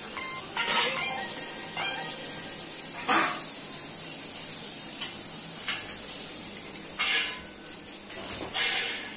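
A Doberman whimpering in short, high whines, some sliding up in pitch, with a few louder rustling sounds.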